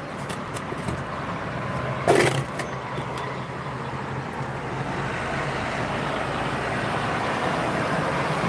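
Steady motor-vehicle noise that slowly grows louder, with one sharp knock about two seconds in.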